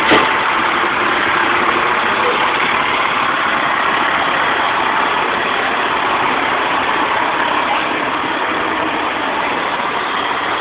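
Fire apparatus diesel engines running steadily as a fire engine and a tiller ladder truck pull slowly past. There is a single short bang right at the start.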